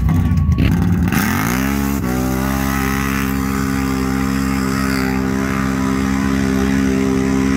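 1000-class mud-drag ATV engine launching at full throttle. The revs climb sharply about a second in, then hold a steady high pitch through the run.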